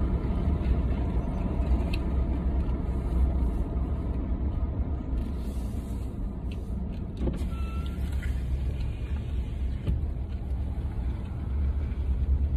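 Road vehicle driving along, with a steady low rumble of engine and road noise.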